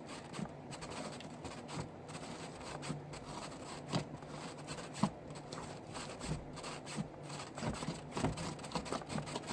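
A large mass of slime being kneaded and mixed by hand: faint, irregular squishing with scattered small clicks and pops.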